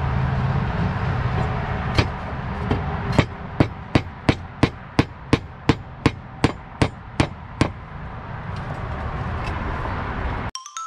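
Hammer driving nails by hand to fasten clay roof tiles: a few single blows, then a quick run of about a dozen even strikes, roughly three a second. Music begins right at the end.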